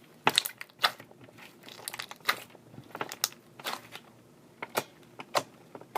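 Sticky slime being squeezed and pulled apart by hand, giving a string of short, irregular crackling and crunching pops.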